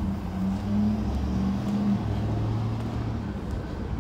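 A motor vehicle engine running with a low, steady hum that fades out a little after three seconds in.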